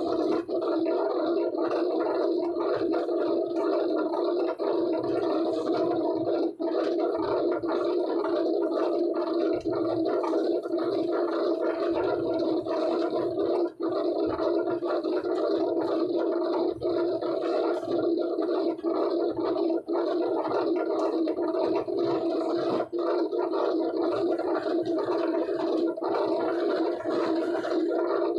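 Corrugated board pasting machine running with a steady drone.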